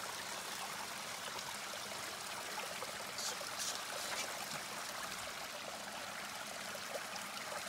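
Shallow mountain stream running and trickling over rocks, a steady rush of water. A few short high-pitched sounds come about three to four seconds in.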